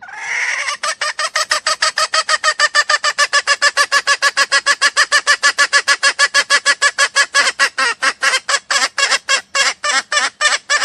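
Junglefowl call played as a lure: a short held note, then a long run of rapid, evenly spaced clucking notes, about five a second, slowing slightly near the end.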